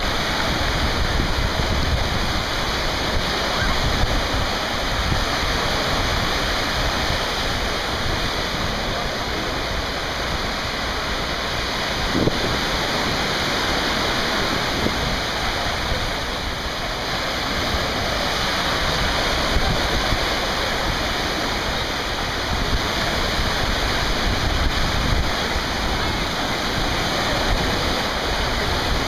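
Small waves breaking and washing up on a sandy beach: a steady rush of surf, with a low rumble of wind on the microphone.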